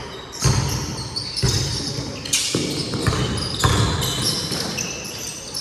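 A basketball bouncing on a hard court, about one bounce a second, with short high squeaks over it.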